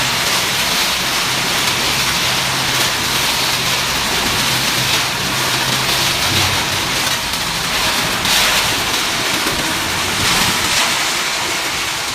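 Self-loading concrete mixer working: its engine runs steadily under a loud, even rushing hiss.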